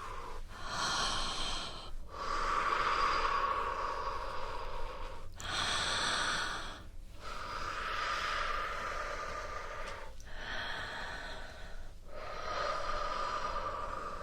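A person breathing deeply and slowly right into the microphone, in three unhurried cycles of drawing in and letting out, each breath out longer than the breath in.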